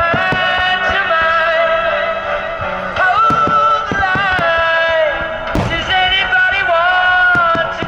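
A song with a sung melody playing over loudspeakers for a fireworks show set to music, with firework bursts popping and banging through it.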